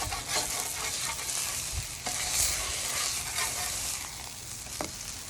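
Chicken smash taco, a tortilla with smashed chicken on it, sizzling as it fries in olive oil, with a few short knocks through the steady sizzle.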